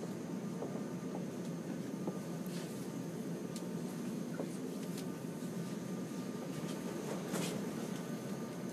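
Steady low hum inside a metro car standing at a station, with a few faint clicks.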